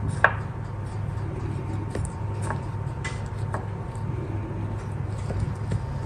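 Hand pressing and rubbing flour onto a marinated chicken leg in a ceramic bowl, with a sharp click against the bowl about a quarter second in and a few lighter clicks later. A steady low hum runs underneath.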